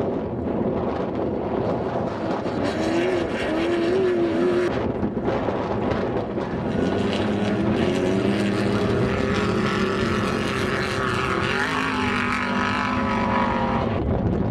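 Off-road race vehicles' engines running hard as they pass at speed: first the revs waver up and down, then after a break a second engine note climbs steadily for several seconds.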